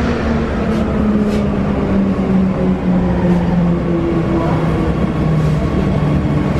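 Steady hum and rumble inside a Wagonmash series 81 metro car, with a few humming tones that slowly shift in pitch.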